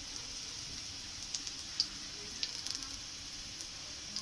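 Garlic, nigella seeds and a dried red chilli sizzling in hot oil in an iron kadai, a steady hiss with a few sharp crackles of spattering oil. This is the tempering (phoron) stage, with the garlic frying until it turns reddish.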